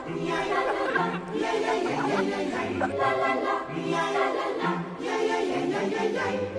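Background music: voices singing sustained chords over a slowly changing bass line.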